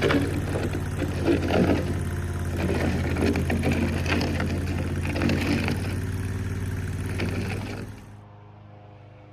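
Mini skid steer's engine running steadily under work, with frequent knocks and clattering over it. The sound cuts off abruptly near the end, leaving a much quieter background.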